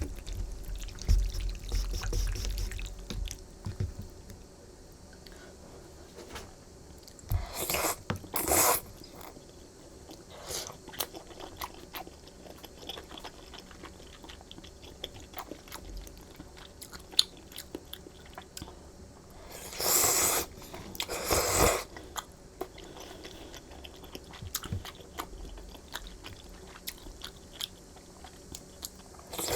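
Close-miked chewing of spicy rosé-sauce flat glass noodles: wet mouth clicks and biting sounds, with two louder stretches of a couple of seconds each, about seven and twenty seconds in.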